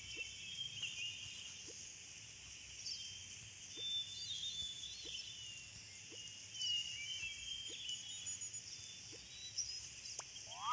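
Outdoor nature ambience: small birds chirping and twittering over a steady high hiss, with faint short low notes coming about once a second.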